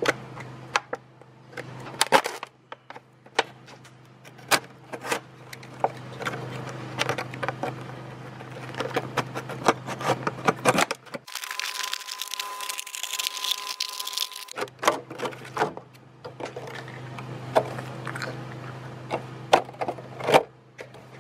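Box-cutter blade cutting through a thin plastic drink bottle, the plastic crackling and cracking in a long run of sharp clicks as it is sliced and bent.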